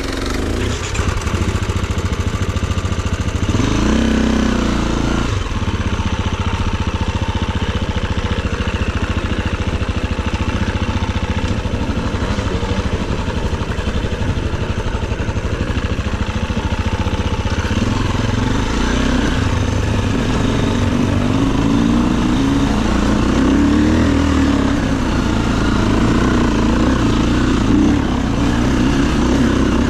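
KTM enduro dirt bike engines running as the bikes ride a rocky trail, the engine note rising and falling with the throttle. One bike revs up about four seconds in.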